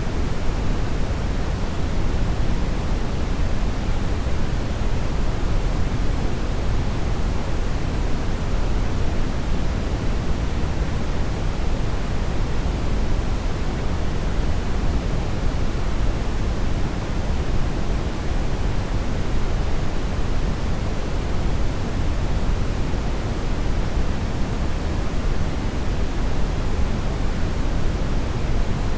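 Continuous brown noise: a steady, unchanging hiss weighted heavily toward the low end and thinning toward the highs.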